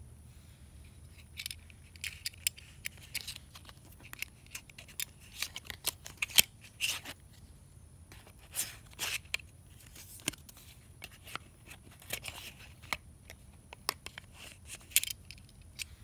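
A metal box belt buckle that works as a wallet being handled: an irregular run of sharp clicks, scrapes and rustles as it is opened and cards and folded bills are slid in and out.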